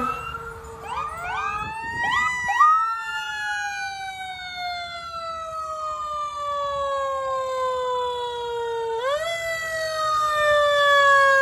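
Fire truck's mechanical siren of the Q type: a few short rising whoops, then a wind-up to a high wail that slowly coasts down in pitch for several seconds. At about nine seconds in it is wound up again and falls off once more.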